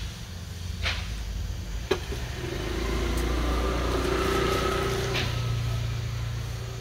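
Motor scooter riding past close by, its engine sound rising to a peak about four seconds in and then fading. Two sharp clicks come before it, about one and two seconds in.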